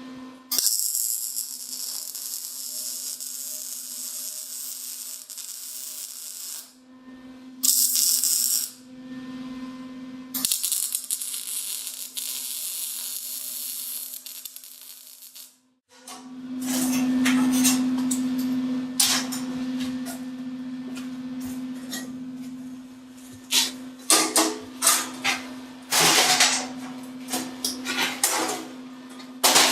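MIG welder arc hissing and crackling in three runs of a few seconds each over a steady hum, tack welding steel. Near the end, a quick series of sharp metal clanks and taps.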